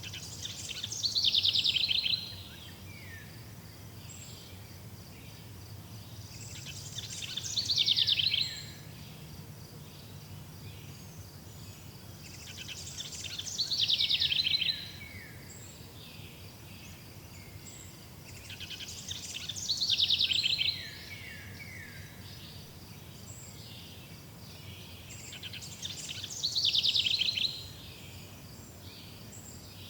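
A forest bird sings the same song five times, about every six seconds. Each song is a quick cascade of notes that falls in pitch and ends in a few lower falling notes. A steady, faint, high insect trill runs underneath.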